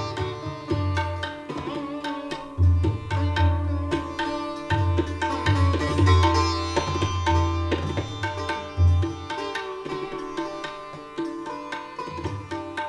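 Sitar and tabla playing Hindustani classical music: a plucked sitar melody with ringing sustained strings over tabla strokes. The tabla's deep bass tones drop out about nine seconds in and come back at the very end.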